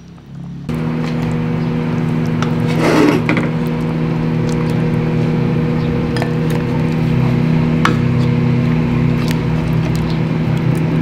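A steady machine hum that starts suddenly about a second in, with scattered light clicks and knocks of a ladle against a metal cooking pot of stew.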